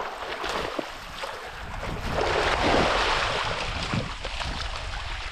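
Shallow sea water splashing and washing over coral reef rocks as a hooked fish is brought in, with wind on the microphone. The splashing grows louder for a second or so in the middle.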